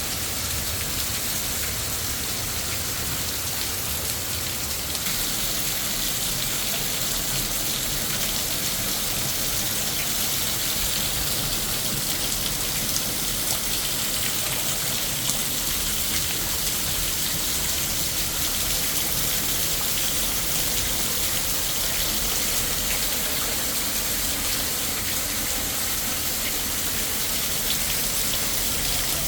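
Heavy rain falling steadily: a dense, even hiss with fine patter of drops on surfaces.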